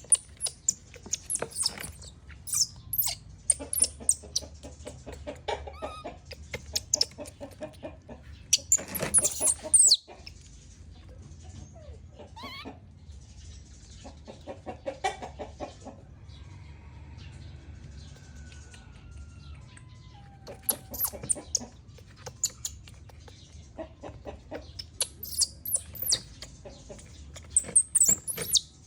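Baby monkey crying angrily: clusters of short, high-pitched squeals and shrieks with quieter stretches between them.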